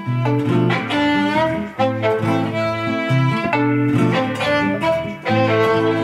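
Violin and nylon-string classical guitar playing an instrumental passage: the violin carries a bowed melody of held notes over the guitar's accompaniment.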